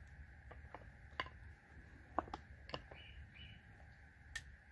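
A few sharp, scattered clicks and light scrapes of a knife handled against a fire-starting rod while getting ready to strike sparks into fatwood shavings. The loudest clicks come about one and two seconds in.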